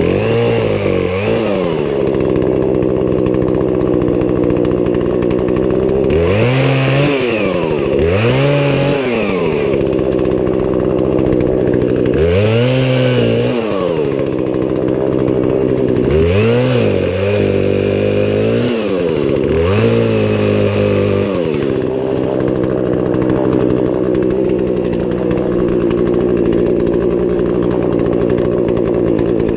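Poulan Pro two-stroke gas chainsaw running, its engine speed swinging up and back down about eight times in quick surges, then holding steady for the last third.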